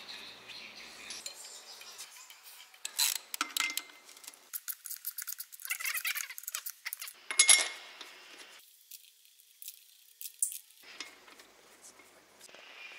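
Ratchet wrench and steel bolts clinking as the flywheel bolts are fitted to an Iveco Cursor 8 engine: scattered metallic clicks, a quick run of ratchet clicks about five seconds in, and one sharp ringing clink of metal on metal about halfway through.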